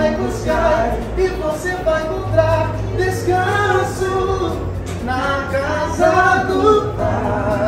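A song with sung vocals over a steady low bass.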